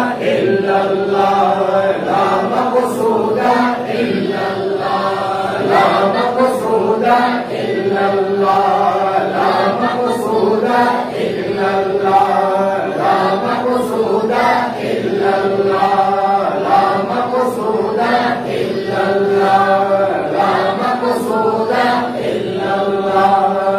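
Devotional chanting by men's voices in unison, a melodic milad recitation sung without pause.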